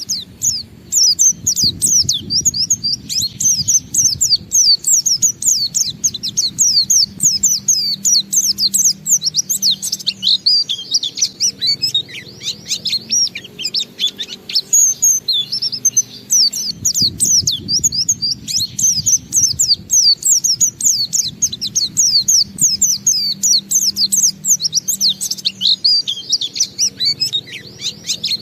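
Oriental white-eye (pleci) singing its long 'ngalas' song: a fast, unbroken stream of high twittering notes.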